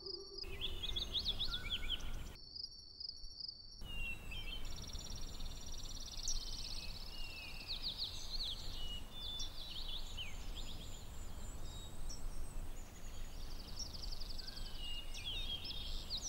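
Outdoor ambience: small birds chirping and calling, with short rising and falling whistles and rapid trills, over a steady low rumble. A held musical tone fades out in the first half-second, and the bird sound drops out briefly about two and a half seconds in.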